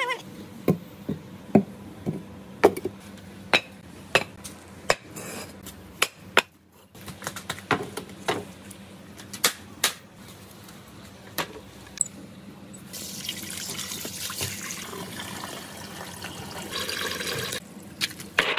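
A run of sharp clacks and knocks, one or two a second, from hard objects being handled and set down while an aluminium stepladder is set up for a marble ramp. About thirteen seconds in, a steady hiss-like rustle takes over for several seconds.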